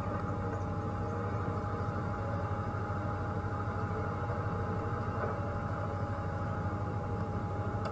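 Open safari game-drive vehicle driving along a dirt track: a steady engine drone with road and wind noise, and a constant thin whine running through it.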